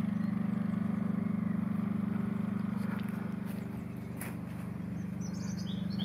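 An engine running at a steady idle, a low even hum with a fast pulse. Birds chirp briefly near the end.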